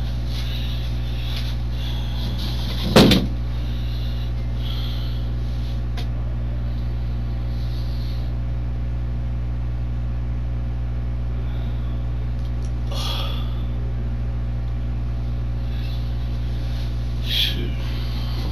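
Steady low electrical hum on a room surveillance recording. A single sharp knock comes about three seconds in, and a couple of faint short knocks or rustles follow later.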